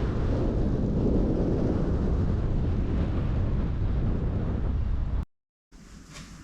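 Wind buffeting a microphone on a bike ridden into a strong headwind, a dense low rumble. It cuts off abruptly about five seconds in, leaving a much quieter stretch with a couple of short hisses.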